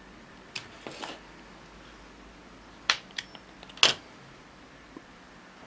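A handful of sharp clicks and light knocks from objects handled on a workbench, with a brief rustle about a second in and the loudest knock near the end.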